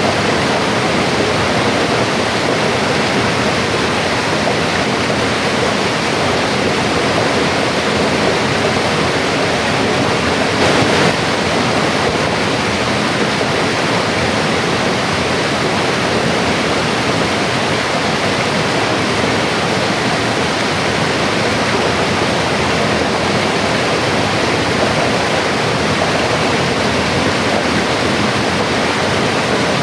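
Mountain river flowing: a steady, even rush of running water.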